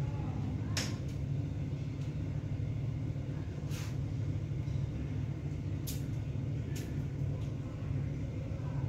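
A steady low hum, with a few short, sharp clicks scattered through it.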